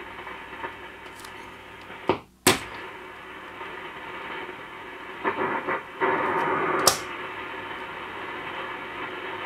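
Short-wave static and hiss from a Grundig Satellit 3400 Pro receiver's loudspeaker while it is tuned between stations. Two sharp clicks about two seconds in, with the sound cutting out briefly between them, another click near seven seconds in, and the noise swells louder just before it.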